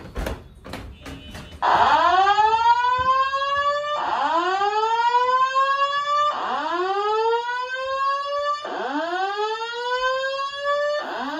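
Simplex 4100ES voice evacuation fire alarm sounding its whoop alert tone: a loud tone sweeping upward over about two seconds, then restarting, again and again. A few knocks come first, and the tone starts about a second and a half in.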